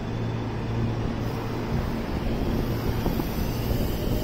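Electric suburban train moving off from a platform: a steady low hum from the train, with a faint rising electric-motor whine as it gathers speed.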